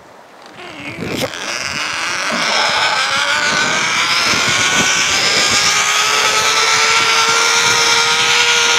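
Zipline trolley pulleys whirring along a steel cable, growing louder and rising in pitch over the first few seconds as the rider picks up speed, then holding a steady high whine over rushing noise.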